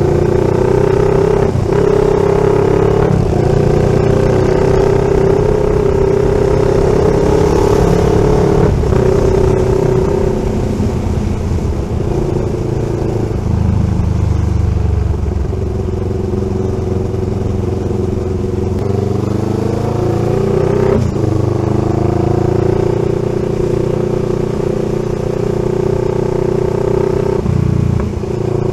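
CFMoto 700CL-X's parallel-twin engine running through an SC-Project slip-on exhaust on a resonator mid pipe (catalytic converter deleted), held at a steady engine speed. The note breaks off briefly a few times and climbs in pitch around twenty seconds in.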